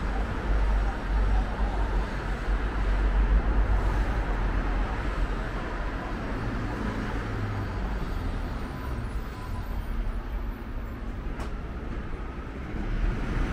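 Road traffic noise: a steady low engine rumble with the hiss of passing vehicles, a little louder again near the end.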